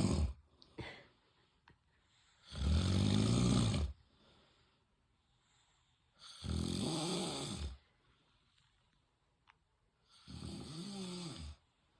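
A man snoring in his sleep: three long snores about four seconds apart, each around a second and a half, with the end of another at the very start. The later snores rise and fall in pitch.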